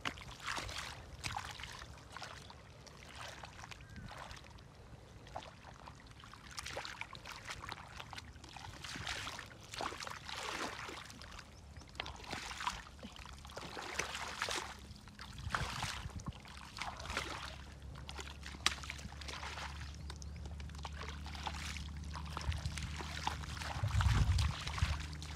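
Bare feet wading through shallow muddy water: irregular splashes and sloshes with each step. A gust of wind buffets the microphone near the end.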